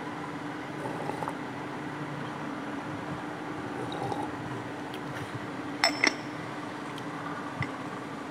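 Sipping a drink from a ceramic mug with faint slurps, then two sharp clinks in quick succession about six seconds in and a lighter one soon after as the mug is put down, over a steady low hum.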